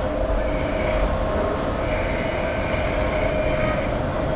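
Steady mechanical drone with a constant whining tone running underneath, with no hammer strikes.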